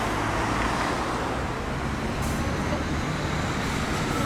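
Steady road traffic on a city street: car and truck engines and tyres going by in a continuous rumble.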